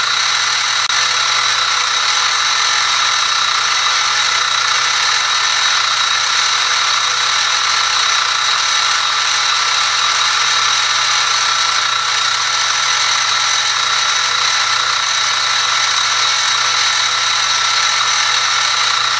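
X2 mini-mill's spindle running, a steady high-pitched whine that holds the same pitch and level throughout.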